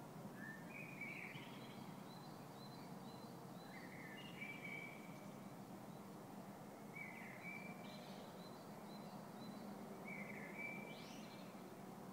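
A faint songbird singing the same short phrase four times, about every three seconds: a few rising notes followed by a string of thin, higher notes. Under it runs steady outdoor background noise with a low hum.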